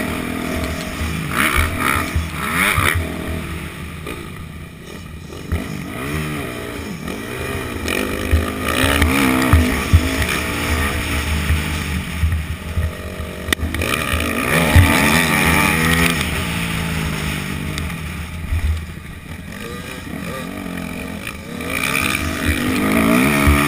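Yamaha YZ250F four-stroke single-cylinder dirt bike engine heard from the rider's helmet camera, revving up and dropping back again and again through gear changes while being ridden hard around a motocross track, with other dirt bikes' engines nearby.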